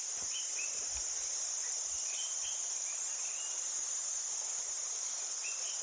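Steady high-pitched drone of insects in the forest, with a few short bird chirps scattered through it.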